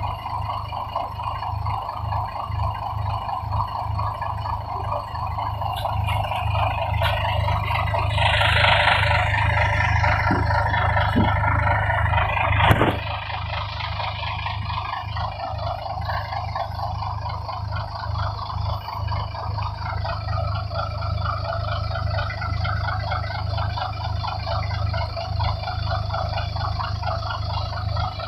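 Engine idling steadily while warming up, with a low pulsing hum. There is a sharp click about thirteen seconds in.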